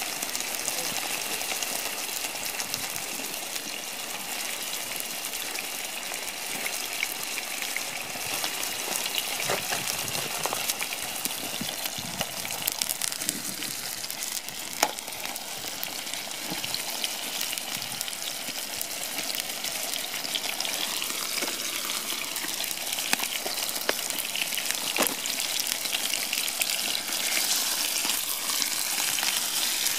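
Raw steak sizzling in hot oil in a frying pan over a small camp stove, a steady hiss with a few scattered sharp pops.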